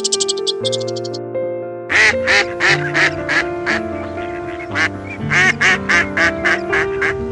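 Duck quacking: a long series of short quacks in two quick runs, starting about two seconds in, over steady background music.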